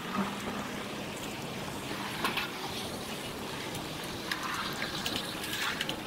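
Steady rushing noise of riding a bicycle along a pavement: wind and tyre noise, with a few light clicks about two seconds in and again near the end.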